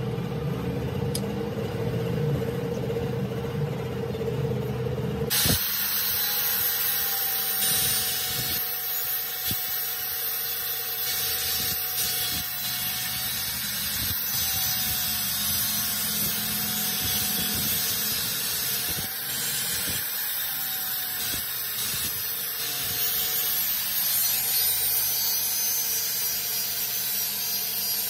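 Angle grinder with an abrasive cutoff disc cutting into a steel workpiece held in a vise. The cut starts about five seconds in with a loud hissing grind over a motor whine that wavers as the disc is loaded. Before that there is a lower, steady hum.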